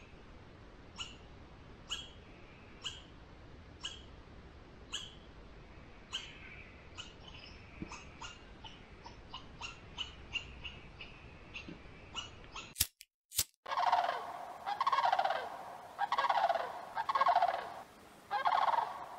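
Wild animal calls: short, high chirps repeating about once a second. After an abrupt cut, louder rolling, rattling calls come in bursts of about a second each.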